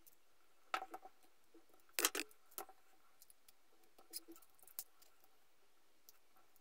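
Brake lines with metal banjo fittings being handled and laid down on a towel: a few light clicks and clatters, the loudest about two seconds in.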